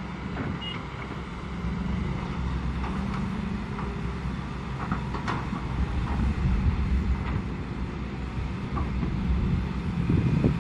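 Diesel engines of several hydraulic excavators working, a steady low rumble that swells and eases as the machines dig under load, with a few faint knocks.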